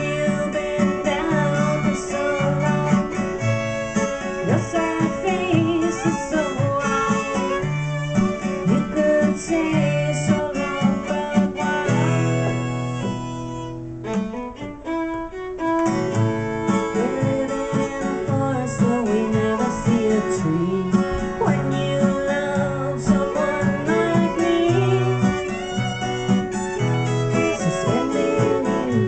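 Acoustic guitar strummed together with a fiddle bowing, played live. The music thins out briefly about halfway through, then picks up again.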